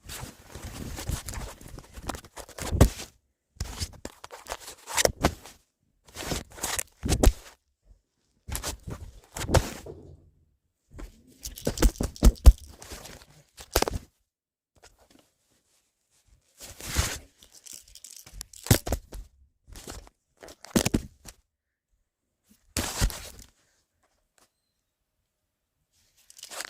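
Handling noise close to the microphone: irregular knocks, clicks and rustling in bursts of a second or two, with short pauses between them.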